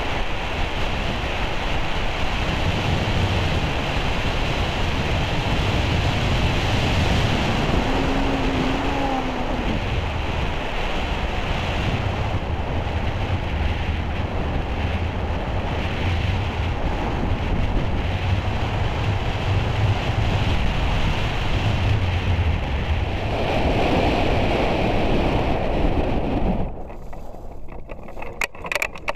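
Airflow rushing over a wing-mounted camera's microphone during hang glider flight: a steady, loud wind rush with a low rumble. Near the end it drops away suddenly as the glider slows to land, leaving a few clicks.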